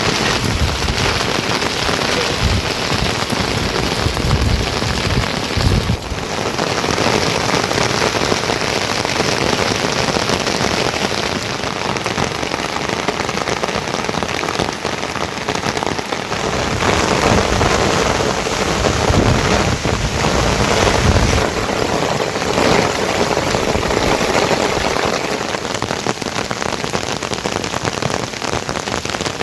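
Heavy rain falling steadily, a dense loud hiss, with low rumbling swells now and then.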